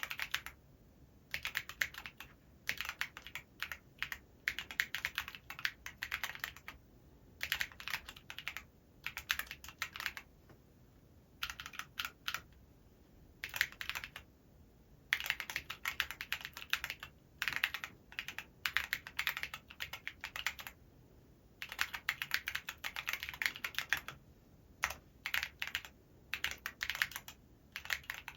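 Typing on a TKD Cycle7 custom mechanical keyboard with Geon Clear switches, a polycarbonate plate and AlephKey keycaps. Fast runs of keystrokes come in bursts of a second or two, with short pauses between them.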